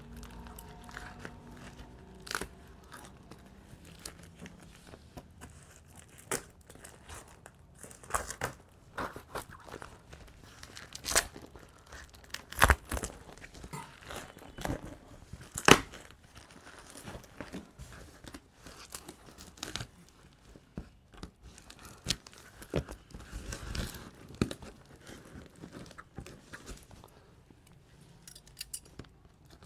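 Plastic wrapping being cut with scissors and torn and crinkled off a cardboard box: irregular snips, rips and crackles, a few sharper and louder ones around the middle.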